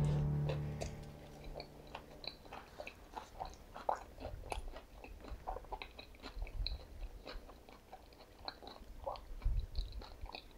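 A person chewing crunchy food: irregular crisp crackles, with a few dull low thumps near the end.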